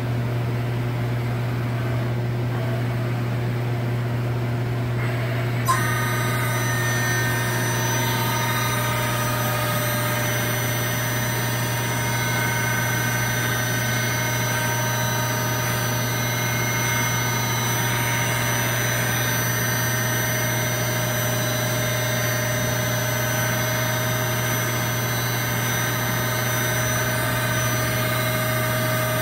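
Mori Seiki Duracenter 5 CNC vertical machining center running with a steady low hum. About six seconds in there is a click, and a steady whine of several high tones sets in alongside the hum as the machine's spindle head moves.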